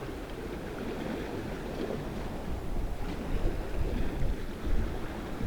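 Wind buffeting the microphone over the wash of sea waves, a steady low rumble that grows a little louder toward the end.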